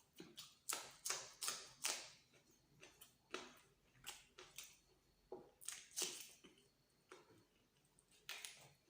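Close-miked eating: a person chewing luchi with egg masala, with irregular sharp mouth clicks and smacks.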